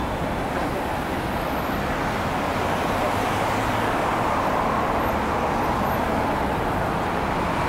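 Steady city street noise: road traffic passing on a busy street, with no single event standing out.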